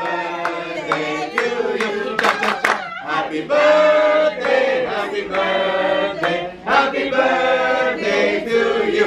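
A group of people singing together with held notes, with hand clapping: a birthday song sung at the table.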